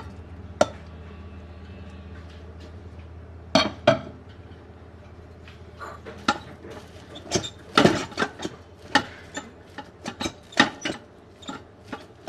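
Wooden rice paddle knocking and scraping against the inner pot of a rice cooker while fluffing freshly cooked rice. It makes irregular clicks and taps: a few at first, then a busier run of them in the second half.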